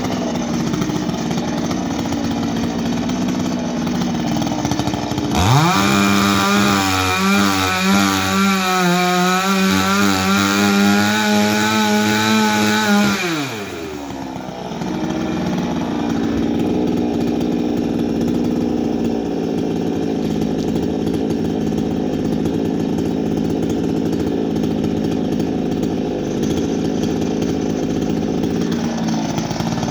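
A small two-stroke chainsaw engine, just repaired, idling, then revved up hard about five seconds in and held at high revs for about eight seconds before dropping back to idle; it starts revving up again at the very end.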